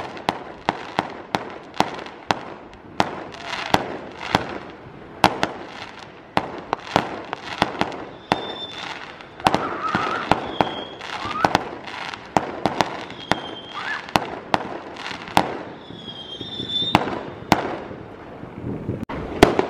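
Fireworks going off: rapid, irregular sharp cracks and bangs, several a second, with a few short whistling tones in the second half.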